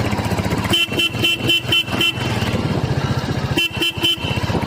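A vehicle horn tooting in quick rapid beeps, about four a second: six in a row, then three more about three and a half seconds in. Under it, the steady running of a Royal Enfield Hunter 350's single-cylinder engine.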